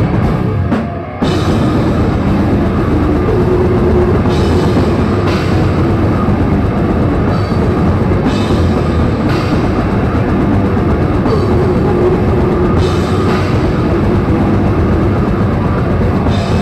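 Technical death metal band playing live: distorted electric guitars, bass and drum kit with cymbals and bass drum, loud and dense. There is a short break about a second in before the full band crashes back in.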